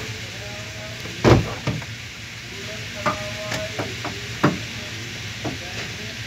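Tools and engine parts knocking and clicking as a mechanic works on the hoses in a pickup's engine bay: one sharp knock about a second in, then several lighter knocks, over a steady hiss.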